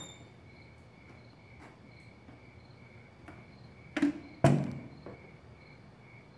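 Crickets chirping, a faint pulsing high trill. About four seconds in come two loud knocks, half a second apart, the second louder and heavier.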